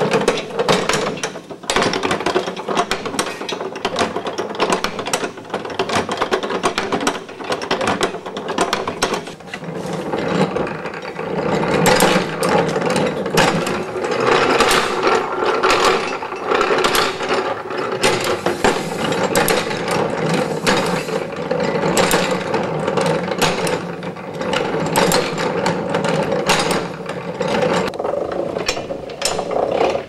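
Antique washing machine gearing and wooden dolly agitator being worked: a continuous clatter of gear teeth and wooden parts clicking, growing fuller about a third of the way in.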